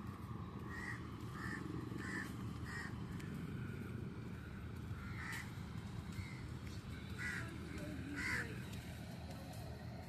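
Crows cawing: a quick run of four short caws about a second in, then several more scattered caws later, over a steady low background noise.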